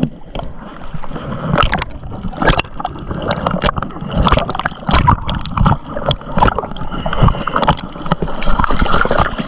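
Lagoon water sloshing and splashing right at the microphone, which sits at the water surface, with many irregular splashes.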